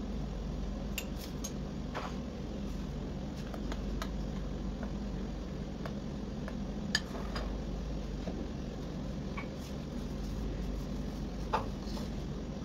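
Metal spoon clinking and scraping against a glass bowl while stirring flour, with scattered light clicks and two sharper knocks, the last as a wooden bowl is set down on a stone countertop near the end. A steady low hum sits underneath.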